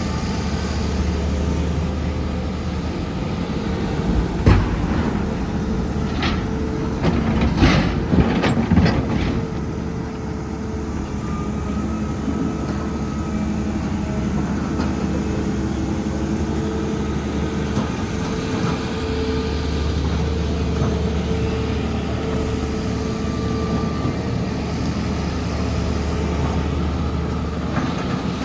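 Diesel engine of a heavy excavator running steadily under work, with a handful of sharp knocks about four to nine seconds in.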